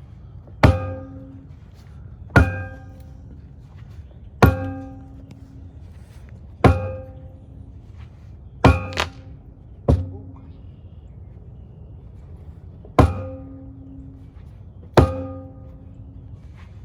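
A heavy hammer repeatedly striking a dock piling to drive it down, about nine hard blows roughly every two seconds, with a short pause near the middle. Each blow rings briefly with a metallic tone.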